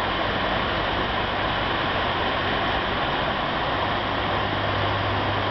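Water from the Vigeland fountain pouring in a continuous sheet over the rim of its raised bronze basin and splashing into the pool below, making a steady, loud rushing.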